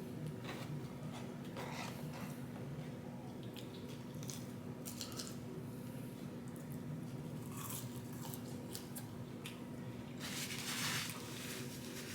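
Close-up eating sounds: a person chewing and biting fast food, with soft wet squishes and small crunches. A louder, longer smack of chewing comes about ten seconds in.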